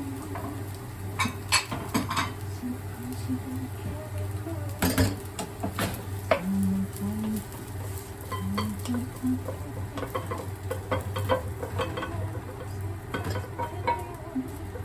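A cooking utensil clinking, knocking and scraping against a pan in irregular strokes, the sound of stirring fried rice, over a steady low hum.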